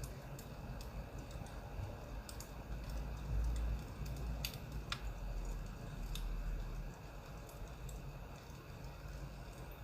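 Burning firewood crackling, with scattered irregular sharp pops over a steady low rumble.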